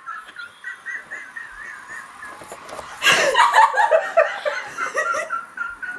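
People laughing helplessly: a run of quick, high-pitched squeaky laughs, breaking into louder, fuller laughter about halfway through.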